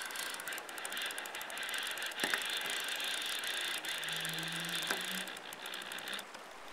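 Fly reel's click-and-pawl drag ratcheting in a fast run of clicks as a big hooked fish fights on the line; the clicking stops about six seconds in.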